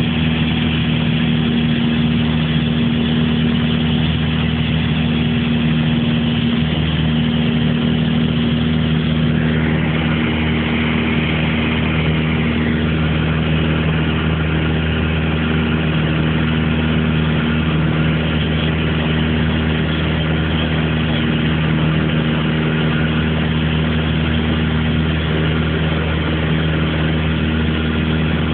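Light aircraft's piston engine running steadily in flight, holding one constant pitch.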